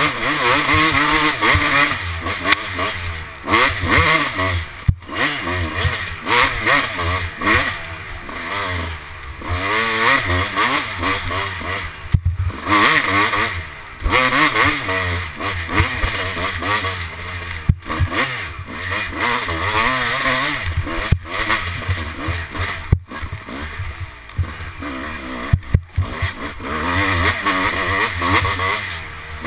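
Kawasaki dirt bike engine revving up and down, pitch rising and falling again and again as it is ridden hard along a twisty wooded dirt track, heard from a helmet-mounted camera.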